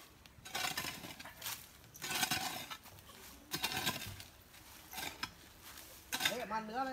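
Mammoty (long-handled digging hoe) chopping into and scraping loose earth, a handful of irregular strikes roughly a second apart. A voice calls out briefly near the end.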